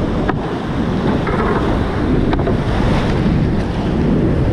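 Whitewater rapid rushing loudly and steadily around a kayak running through it, heard up close, with water splashing over the boat and paddle.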